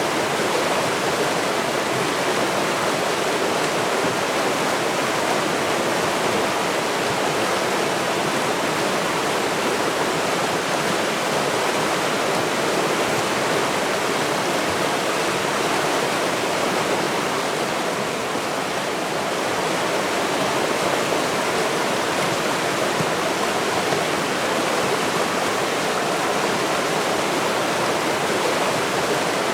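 A river rushing steadily, a constant even sound of fast-flowing water with no breaks, briefly a little quieter about eighteen seconds in.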